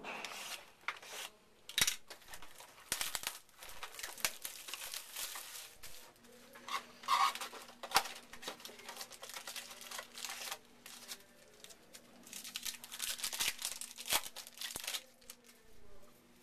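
A sealed box of trading cards being slit open with a box cutter, its plastic wrap and packaging torn and crinkled in irregular stretches, with a few sharp clicks.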